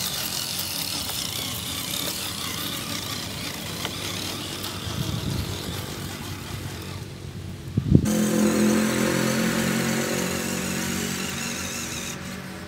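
Radio-controlled scale crawler trucks driving up a slope of pine litter, their motors and geartrains running steadily. A sharp knock about eight seconds in, after which the drive sound is louder.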